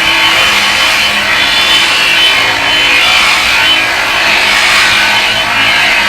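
Angle grinder with a cutting disc running and cutting into a pipe, a loud steady grinding.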